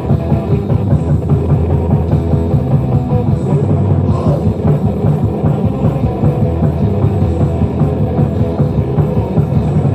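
A live heavy metal band playing loud, with a fast, steady drum kit beat driving under dense, heavy instrumentation.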